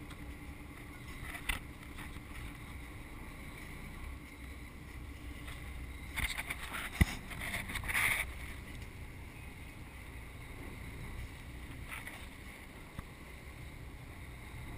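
An offshore sportfishing boat's engine running with a steady low rumble, with water and wind noise around the stern. A few brief knocks and splashy bursts come between about six and eight seconds in, the loudest a sharp knock about seven seconds in.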